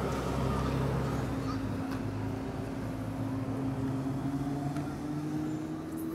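A large vehicle's engine runs steadily as a low droning hum. Over the last couple of seconds its pitch rises slowly.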